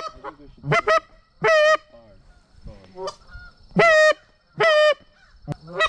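Goose honking: a run of loud, short, clipped honks, each with a flat pitch that drops off at the end, coming about once a second with a pause of about two seconds in the middle.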